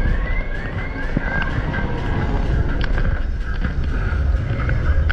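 Steady low rumble and wind buffeting the microphone of an onboard camera on a fairground thrill ride, with fairground music under it. There is a quick run of short rising-and-falling chirps in the first two seconds, and a few scattered clicks.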